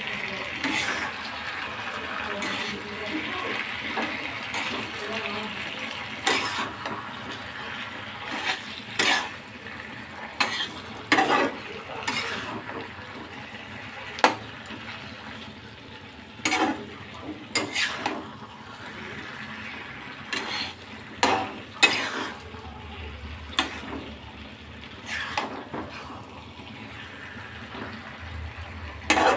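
Metal spatula stirring chicken in a black kadai, scraping and clinking against the pan over a steady sizzle of frying. The sharp, irregular clinks and scrapes come thick from about six seconds in.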